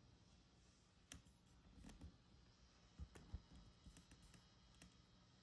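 Near silence with a few faint, scattered clicks and light taps, the loudest pair about three seconds in.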